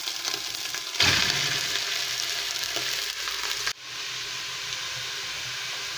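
Minced meat sizzling as it goes into hot olive oil with softened onion in a pot, stirred with a wooden spoon. The sizzle jumps louder about a second in, then drops suddenly near four seconds to a steadier, quieter hiss.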